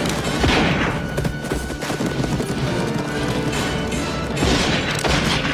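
Dramatic film score music, with gunshots and horses' hoofbeats mixed in under it.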